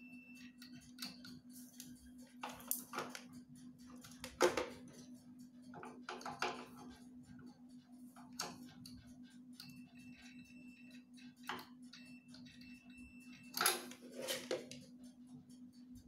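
A steady low hum with scattered clicks and several clattering knocks, the loudest about four seconds in and again near the end. A faint short high tone sounds twice, around the middle.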